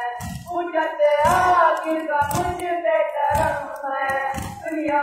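An Urdu noha (Muharram lament) being sung: a voice holding long, wavering notes over low, regular beats about once a second.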